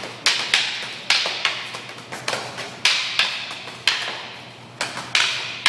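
Escrima sticks clacking against each other in a fast defend-and-counter drill: a rapid, irregular run of sharp strikes and blocks, about two to three a second, each ringing briefly.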